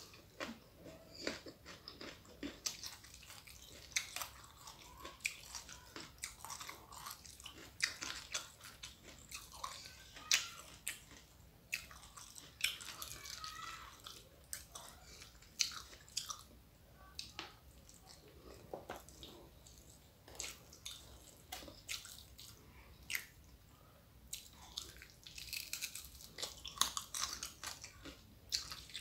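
A person chewing and biting raw young jengkol, fresh lettuce and crisp fried salted fish with rice: many short, irregular crunches.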